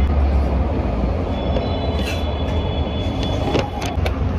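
Steady low vehicle-like rumble with a few light clicks near the end.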